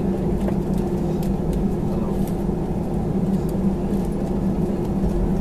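Cabin noise of an Airbus A320-family jet taxiing: a steady engine hum with two low held tones, and faint light ticks and rattles here and there.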